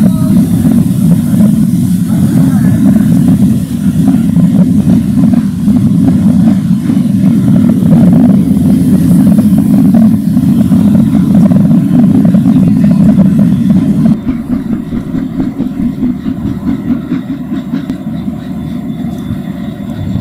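Steam-hauled train running, a loud steady rumble with no clear beat; it drops in level about fourteen seconds in.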